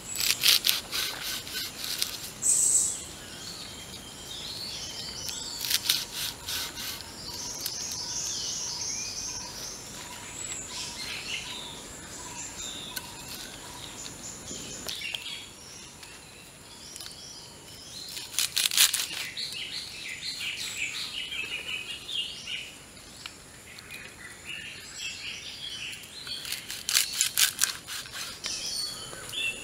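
Machete chopping a bunch of green leaves against a wooden log, in short runs of quick strokes with pauses between. Birds chirp throughout.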